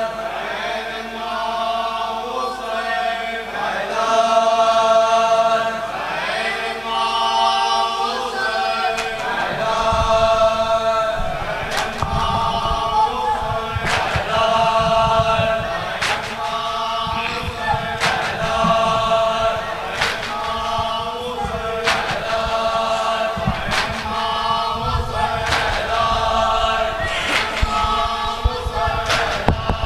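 A group of male voices chanting a noha lament in unison. From about ten seconds in, rhythmic chest-beating (matam) joins in as hand slaps about once a second under the chant.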